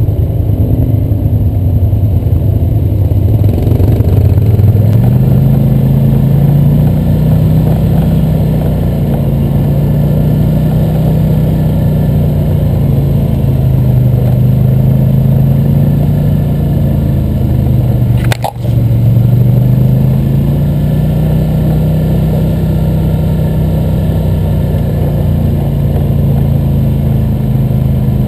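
ATV engine running as the quad rides along a dirt trail, its pitch rising and falling with the throttle. There is a brief click and drop in the sound about two-thirds of the way through.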